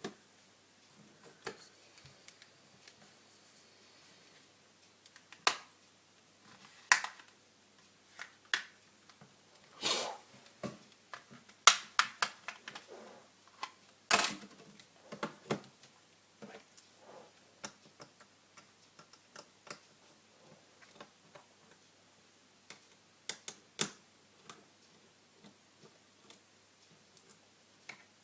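Irregular small clicks and taps of a smartphone being handled and worked on with small tools, plastic parts clicking and knocking, with a denser, louder run of them in the middle.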